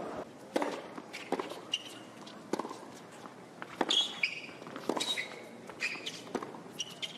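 Tennis rally on a hard court: sharp racquet strikes and ball bounces about once a second, with short high squeaks of the players' shoes on the court surface.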